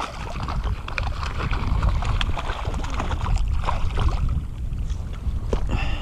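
A hooked fish splashing and thrashing at the water's surface as it is drawn into a landing net, with many short splashes and drips. Under it runs a steady low rumble of wind on the microphone.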